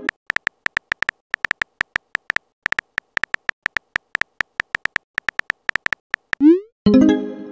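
Phone-keyboard typing sound effect: short high beeps, about four a second and slightly irregular. Near the end comes a quick rising swoop and then a chime, the message-sent sound.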